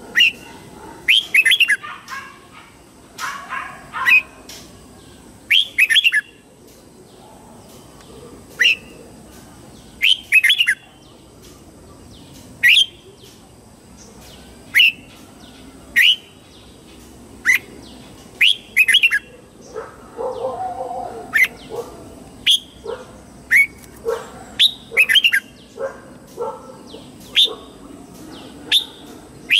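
Red-whiskered bulbul singing: short, clear notes sliding down in pitch, given singly or in quick runs of two to four, every second or two. Fainter, lower calls join in during the second half.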